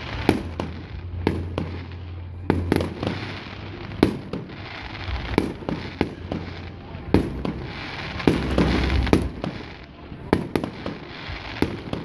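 Aerial fireworks shells bursting overhead: a steady run of sharp bangs at irregular intervals, about two a second, each trailing off into a rumble.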